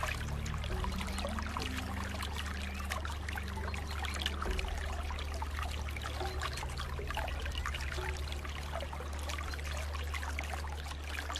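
Running water trickling and splashing, a dense, continuous patter of small droplets over a steady low rumble.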